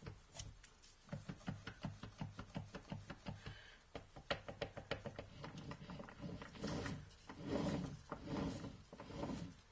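Input shaft of a Peugeot BE4 gearbox rocked back and forth by hand, knocking in its free play about three times a second. Near the end the knocks give way to a few longer rubbing scrapes. The knocking is the sign of quite a bit of play on the input shaft.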